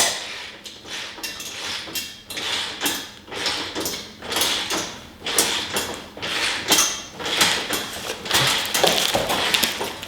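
Hand socket ratchet being swung back and forth to tighten a nylon lock nut, giving a burst of clicking on each stroke, about two a second.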